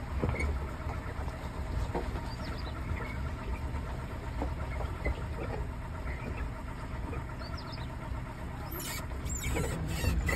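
Car engine running at low revs as the car creeps along slowly, a steady low rumble. There are faint short high chirps and a brief rush of hiss near the end.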